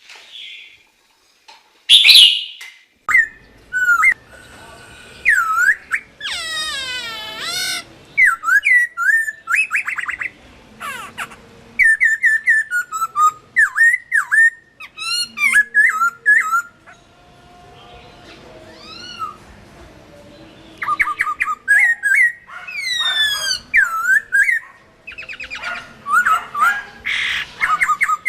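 Chinese hwamei (Garrulax canorus) singing: a loud, varied run of whistled phrases, with fast repeated notes and slurred rising and falling whistles, broken by short pauses.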